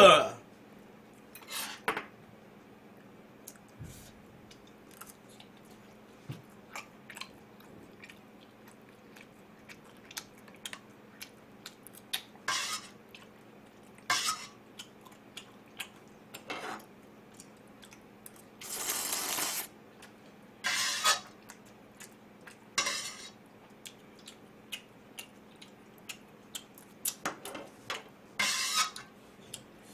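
Metal chopsticks clicking and scraping against a metal pot of ramyun as the noodles are stirred and lifted, in scattered light clinks. A few noisy eating sounds about a second long come in the second half.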